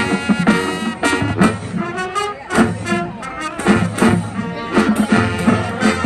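Marching band playing a loud up-tempo passage, with brass (trumpets and trombones) holding chords over sharp, regular drum hits.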